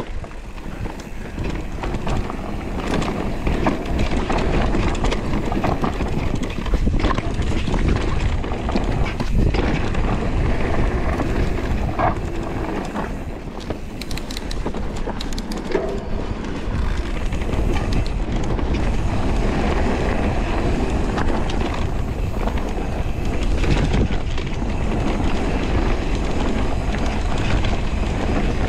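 Radon Deft electric mountain bike rolling down a dirt, leaf-covered forest trail: a steady low rumble of knobby tyres on the ground, with frequent small clicks and rattles from the bike over bumps.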